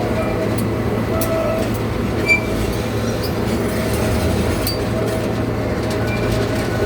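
Riding in a passenger train car as it rolls along the track: a steady low rumble with scattered light clicks and clinks, and a brief high squeak about two seconds in.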